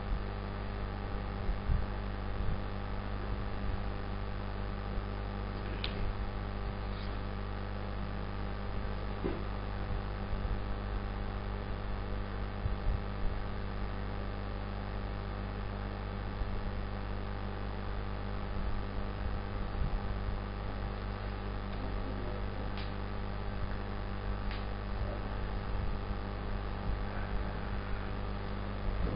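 Steady electrical mains hum with a few faint clicks.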